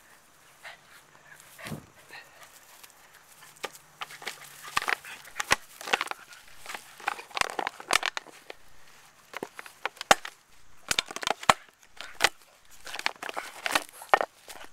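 Boston terrier biting and chewing a plastic 2-liter Coca-Cola bottle. The plastic gives a rapid, irregular run of sharp clicks and cracks, busiest from about four seconds in.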